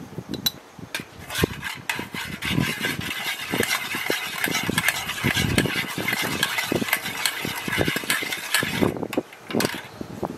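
A metal spoon stirring turmeric into hot fat in a small aluminium pot, scraping and swishing round the pot in quick repeated strokes over a steady hiss. The stirring stops about nine seconds in.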